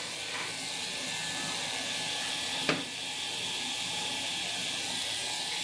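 Electric tattoo machine running steadily as it needles ink into the skin of an upper arm, heard as an even high hiss. There is one brief click about two and a half seconds in.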